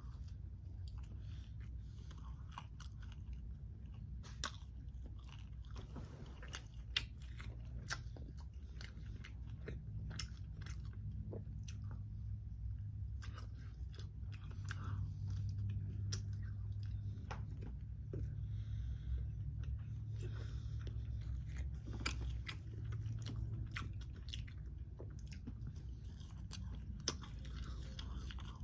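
Close-up chewing and biting of boneless fried chicken: wet mouth sounds with many short, sharp crunches and clicks. A steady low hum runs underneath.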